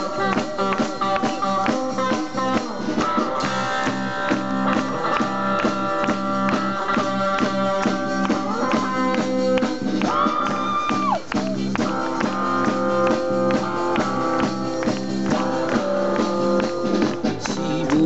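Live rock and roll band playing: electric and acoustic guitars over a steady drum beat, with one long held high note about ten seconds in.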